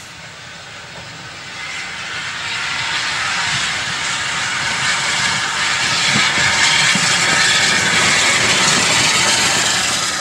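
Small tank steam locomotive hauling coaches, hissing steam loudly, the hiss and rumble growing louder as it comes nearer and passes.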